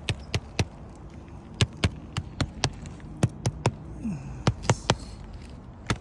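A quick, irregular series of sharp taps or clicks, about two to three a second, with a short low vocal sound about four seconds in.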